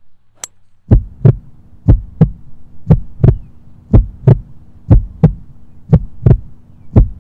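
A five wood strikes a golf ball with one sharp click just under half a second in. Then a heartbeat sound effect starts, loud double beats about once a second over a steady low hum.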